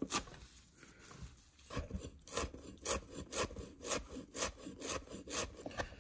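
Cleaver chopping fresh parsley and dill on a wooden cutting board. One chop comes at the start, then a pause, then steady chops about two a second.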